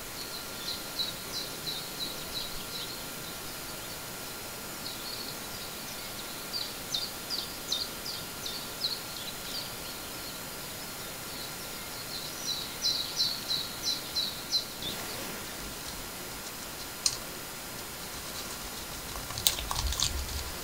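A bird calling in three runs of short, high chirps, several a second, over a steady background hiss; a few sharp clicks come near the end.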